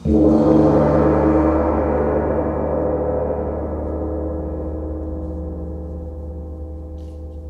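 A gong struck once, its many-toned ringing slowly dying away.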